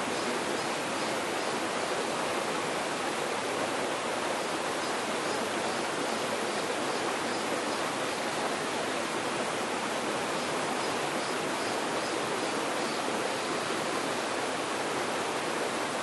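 Mountain stream rushing over rock ledges in a small cascade: a steady, even rush of water.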